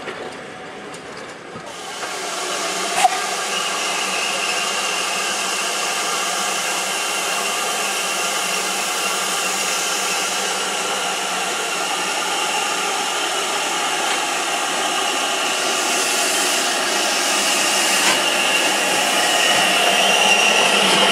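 Steam locomotive standing at a platform, letting off steam with a steady hiss that starts about two seconds in and grows a little louder near the end.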